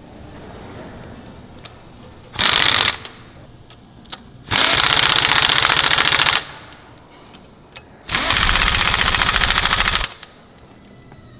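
Impact wrench hammering socket-head cap screws tight into the steel frame of an excavator tiltrotator. It gives one short burst, then two longer runs of about two seconds each.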